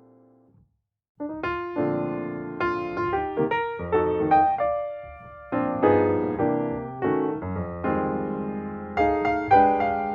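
Background piano music: after a brief silence about a second in, a piece of melodic piano notes starts and plays on.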